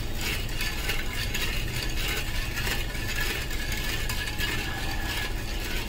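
White plastic spatula stirring wet granulated sugar in a hammered metal kadhai: a steady gritty scraping of sugar grains against the pan, the sugar not yet dissolved into syrup.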